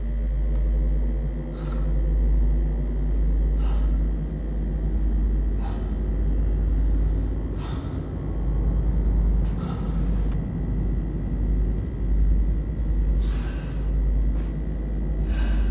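A person breathing heavily, a breath about every two seconds, over a loud, steady low rumble.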